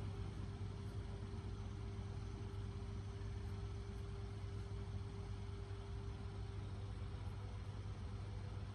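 Steady low machine hum with a thin, steady tone above it, unchanging throughout.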